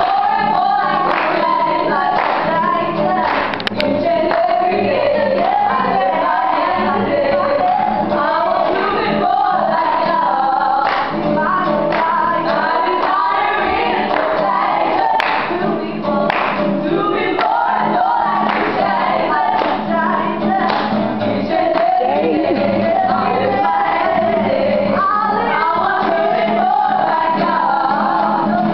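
A small group of young women singing a Christian song in harmony, accompanied by an acoustic guitar.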